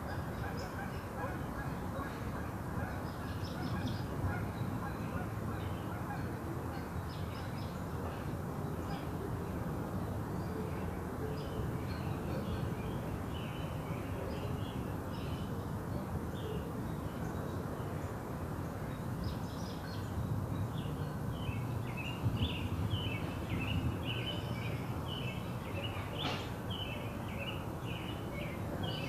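Many short, high chirping calls from small animals, scattered at first and crowding together from about two-thirds of the way in, over a steady low rushing noise. No thunder is heard.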